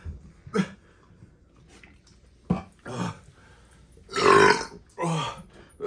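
A series of deep burps, about five separate ones, the longest and loudest about four seconds in. They are gas brought up by eating and drinking diet soda, which is described as always burpy.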